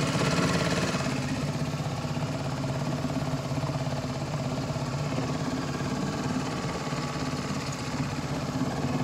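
Boat engine running steadily at low speed, an even drone with no changes in pitch.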